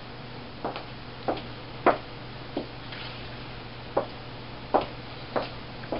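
About nine short, irregular clunks and knocks: metal baking pans and the oven rack knocking against each other as fruitcake pans are loaded into a wall oven. A faint steady low hum runs underneath.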